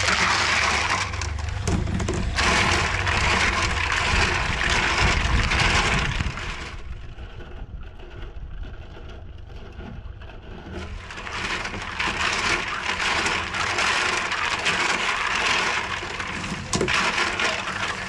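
Freshwater snails tipped from a plastic basket into an aluminium bowl of water and washed by hand. Their shells clatter against each other and the bowl amid splashing water, with a quieter stretch of a few seconds near the middle.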